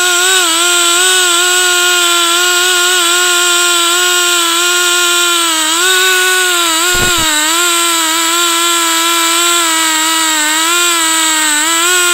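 Stihl two-stroke chainsaw running at full throttle as it rips a log lengthwise in a chainsaw mill. The pitch holds high and steady, with small dips under the cutting load, the clearest about seven seconds in.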